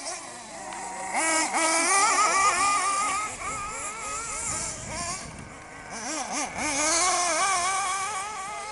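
Small glow-fuel two-stroke engines of 1/8-scale off-road RC buggies revving as they race past, the high engine note wavering up and down with the throttle. It swells about a second in, eases off in the middle and swells again near the end.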